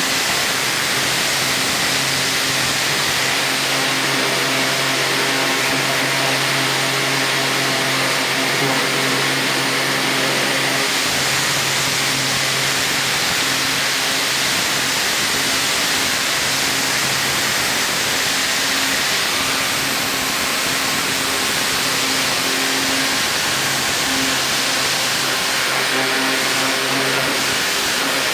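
High-pressure washer spraying: a steady, loud hiss of the water jet over the constant hum of the washer's motor and pump, with no letting up.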